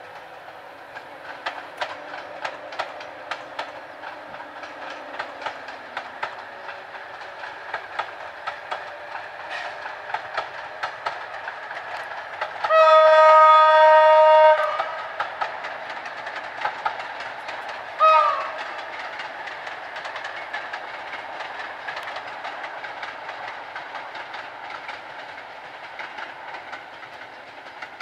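EP07P electric locomotive hauling passenger coaches past, its wheels clacking in a steady rhythm over the rail joints. About halfway through, the locomotive's horn sounds one loud blast of about two seconds, then a few seconds later a brief second blast that sags in pitch as it cuts off.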